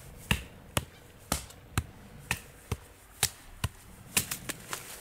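Batoning: a wooden stick striking the spine of a Mora Kansbol knife about twice a second, nine sharp knocks driving the blade through a wet poplar branch, with a few lighter taps near the end.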